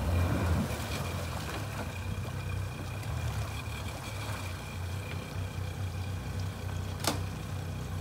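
Twin Mercury outboard motors on a Boston Whaler running at idle with a steady low rumble, a little louder in the first half second. A single sharp knock sounds near the end.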